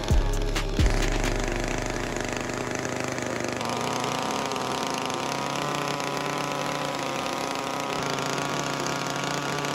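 Small carving chainsaw running steadily as it shapes wood, its pitch wavering slightly under load. A couple of low thumps come in the first second.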